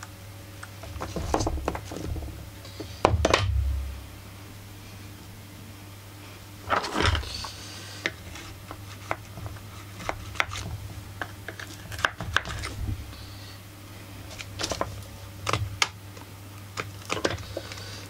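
Irregular clicks, taps and scraping of a screwdriver and gloved hands working on a chainsaw's carburettor, fuel line and plastic housing, with louder scraping bursts about three and seven seconds in, over a steady low hum.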